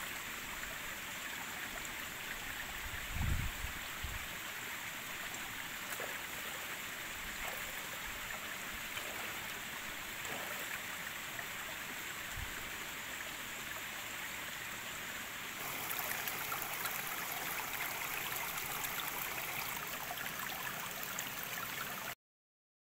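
Stream water flowing steadily, with two low thumps, one about three seconds in and one about twelve seconds in. The water grows louder and brighter about fifteen seconds in, then the sound cuts off suddenly near the end.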